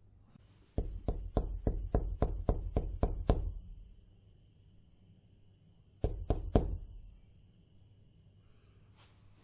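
Knocking on a door: a run of about ten even knocks, roughly four a second, then after a pause three quicker knocks.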